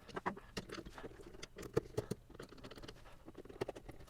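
Light, irregular plastic clicks and taps from the WMF Lono milk frother's plastic housing as its cover is handled and pressed back into place.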